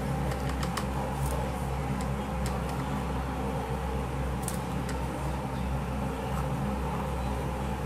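Steady low hum and hiss of room tone, with a few faint clicks and taps as the circuit board and soldering iron are handled.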